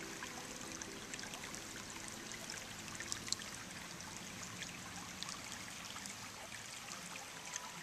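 Shallow water trickling over stones at the edge of a creek: a soft, steady babble full of small splashy ticks, with one sharper splash about three seconds in.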